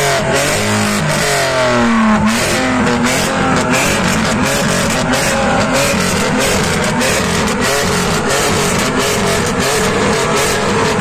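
Rock music with electric guitar, loud and steady.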